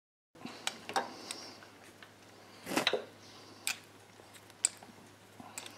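Hand-tapping a thread into a metal bushing held in a lathe chuck: a run of sharp metallic clicks with a short scrape a little under three seconds in, over a faint steady low hum.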